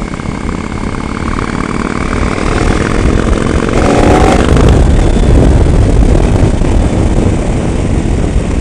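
KTM adventure motorcycle's engine accelerating, heard from the rider's seat with wind rushing over the microphone. The sound grows louder over the first few seconds, and the engine note rises about three to five seconds in as the bike speeds up from about 30 to 45 mph.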